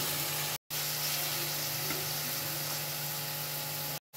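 Boneless chicken cubes frying in hot ghee in a steel pan: a steady sizzling hiss with a low hum underneath. The sound cuts out briefly twice, about half a second in and near the end.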